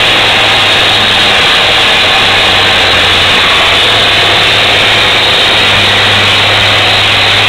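Diesel pulling-tractor engine running flat out under full load as it drags a weight sled, a loud, steady roar with a deep low drone and no letting off.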